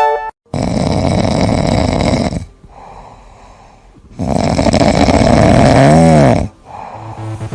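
Loud snoring: two long rasping breaths with a quieter breath between them. The second ends in a brief squeaky whistle that dips and rises in pitch.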